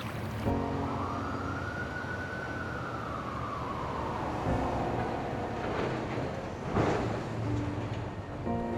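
Emergency vehicle siren making one slow wail, rising and then gliding back down, over the steady rumble of city traffic, with a vehicle whooshing past near the end.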